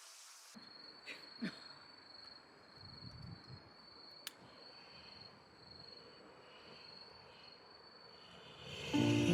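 Crickets chirping in a steady, pulsing high trill, with a few faint knocks and a click; background music comes in near the end.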